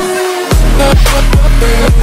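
Electronic dance music in a dubstep style with heavy bass and deep, repeated kick drums; the bass drops out for about half a second at the start, then comes back in.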